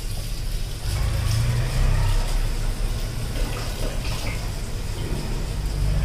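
Water jet from a garden hose spraying against the aluminium fins of a Hitachi window air conditioner's condenser coil, washing the dirt out of it. A low steady hum runs underneath.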